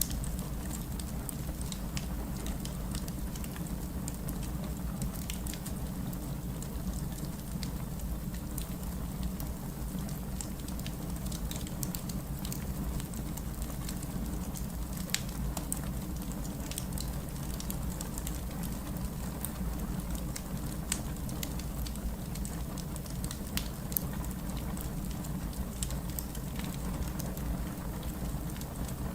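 Fireplace ambience: a steady low rumble with irregular sharp crackles and pops from the burning fire.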